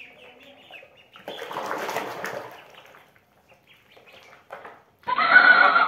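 Ducklings peeping and paddling in a plastic basin of water. Faint peeps at first, then a burst of splashing about a second in that lasts about a second. Much louder peeping cuts in suddenly near the end.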